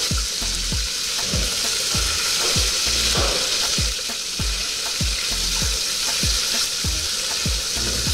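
Beef pieces frying in cooking fat in an aluminium pot, a steady sizzle, as a wooden spoon stirs them round. A steady low thumping beat runs underneath, about two and a half thumps a second.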